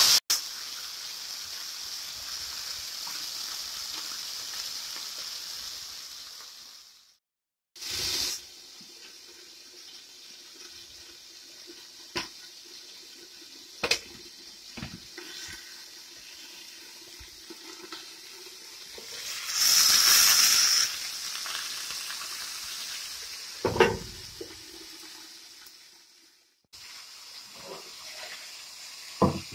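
Whole chicken sizzling in hot oil in a frying pan, a steady high hiss. After a cut come quieter kitchen handling sounds: clicks and knocks of pans and a pot lid, a loud rushing burst lasting about a second, and a knock.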